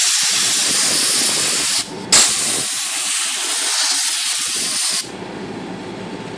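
Compressed air blown in a loud, steady hiss through the typewriter's keyboard levers and comb to clear off cleaning residue. It breaks off briefly about two seconds in, starts again sharply, and cuts off about five seconds in.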